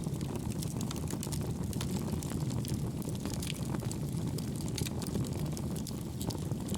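Wood fire burning in a homemade wood-gas stove made from two pail cans: a steady low rumble of the flames with frequent small crackles and pops.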